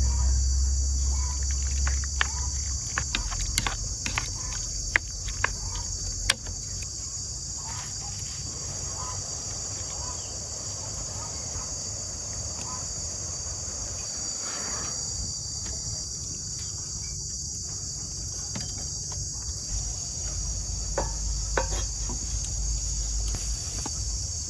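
Steady high-pitched chorus of insects, with scattered sharp clicks and taps in the first several seconds.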